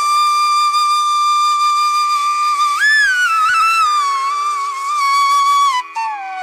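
Background flute music: long held notes over a steady drone, with a quick ornamented rise about three seconds in and a step down to a lower note near the end.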